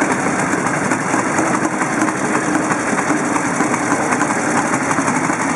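Several vintage motorcycle engines idling together, a dense, steady, loud mix of running engines.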